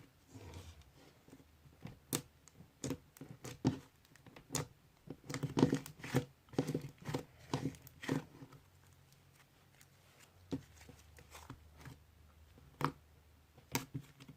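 Green glitter bead slime being squeezed and poked by hand, giving irregular crackles and pops, with a thicker run of them in the middle.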